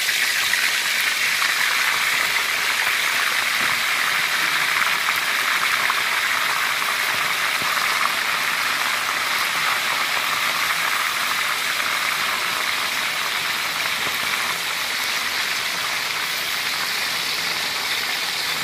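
Raw chicken leg pieces deep-frying in hot oil in a wok, a steady, dense sizzle with fine crackle, the oil bubbling hard around the freshly added meat.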